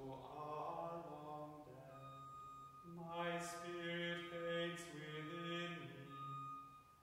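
Male voice chanting a psalm in plainsong, holding long notes on one reciting tone with short steps at the ends of phrases, and a brief pause about halfway through.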